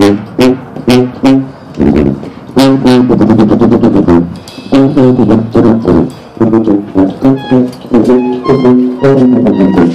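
Sousaphone playing a run of short, separately tongued low notes, with a longer stretch of held and connected notes about three to four seconds in.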